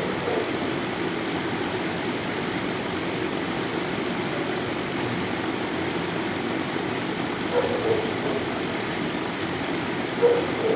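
Steady rushing noise of the kennel's air handling, with a few brief short sounds about eight seconds in and again near the end.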